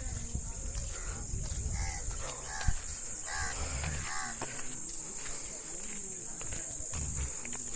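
Insects trilling in one steady, unbroken high-pitched drone, with faint distant voices and a low rumble underneath.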